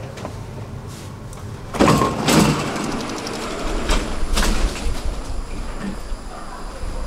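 Stockholm metro train's sliding doors closing, with a loud knock a little under two seconds in and further clunks a couple of seconds later, over the low rumble of the train.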